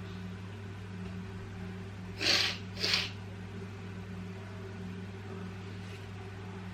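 Two quick sneezes about half a second apart, a little over two seconds in, from a person with a head cold. A steady low hum runs underneath.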